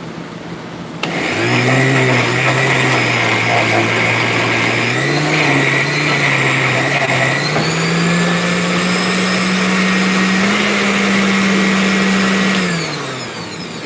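Countertop blender pureeing chunks of fresh peach. The motor starts about a second in and runs steadily, its pitch climbing in steps as the fruit breaks down, then winds down and stops near the end.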